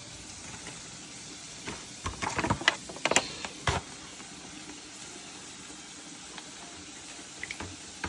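Cookware and utensils clattering: a handful of sharp knocks and clinks about two to four seconds in, over a steady low hiss from the cooking.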